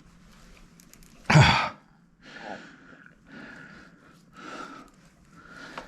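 A man's loud sigh about a second in, followed by several short, fainter breathy rasps roughly once a second.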